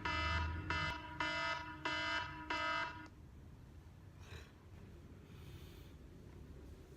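A wake-up alarm beeping in a steady train of pitched pulses, about one and a half a second. It stops about three seconds in, switched off.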